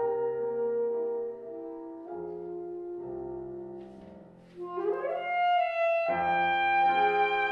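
Piano holding soft chords on its own, then an alto saxophone comes in with an upward scoop about four and a half seconds in. The saxophone and piano play on together, louder.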